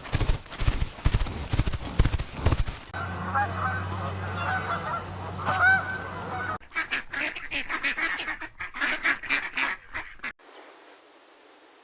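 Farm poultry honking and calling in several short cut-together clips, dense and noisy at first, then arched calls over a steady low hum, then a run of rapid honks. The calls stop about ten seconds in.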